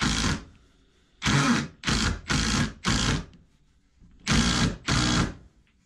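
Cordless impact driver hammering as it drives an 8-inch timber screw into a pine 2x4, run in short bursts of about half a second: one ending at the start, four in quick succession about a second in, and two more near the end. The screw goes in a little at a time to keep the long screw from wandering and blowing out the side of the thin wood.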